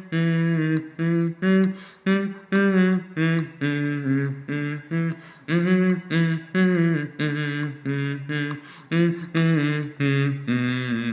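Wordless humming of the song's melody in short, separate notes, some with a wavering pitch.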